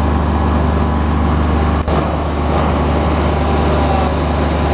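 Airman PWP60S diesel engine welder-generator running steadily with a constant low drone. For the first couple of seconds an arc-welding arc crackles over it, then there is a brief dropout about two seconds in.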